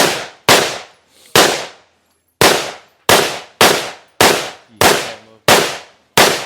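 Gunshots from a firearm at a shooting range, fired as rapid single shots. There are about ten, roughly one every half second to a second, with a short gap after the third, and each shot rings out briefly.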